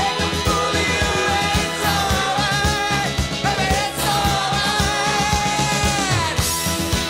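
Rock song with singing over a steady drum beat; a held sung note slides down about six seconds in.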